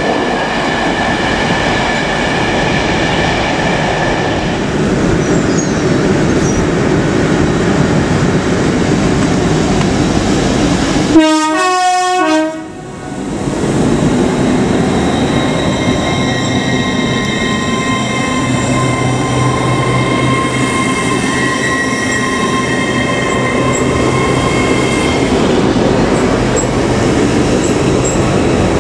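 Trains at a station platform: a rake of passenger coaches rolls past, then, after an abrupt cut about 11 seconds in, an LNER Azuma electric multiple unit moves along the platform with a steady electric whine over the rumble of its running.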